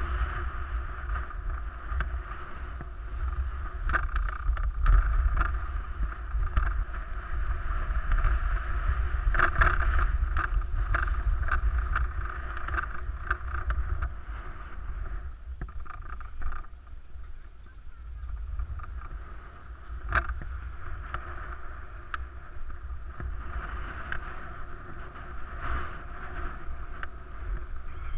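Skis sliding and scraping over packed snow on a downhill run, with wind buffeting the microphone as a low rumble. The scraping eases off for a few seconds past the middle.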